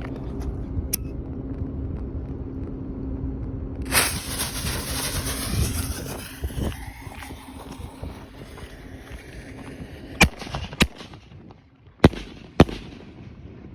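Consumer aerial fireworks going off: a burst about four seconds in followed by a hissing crackle that fades over a few seconds, then four sharp bangs in two pairs near the end.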